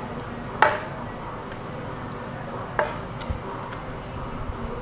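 A few short taps from a silicone spatula on the pan and bowl as kebab sauce is spooned onto the rolled naan dough, the first and loudest about half a second in. A steady high-pitched tone continues underneath.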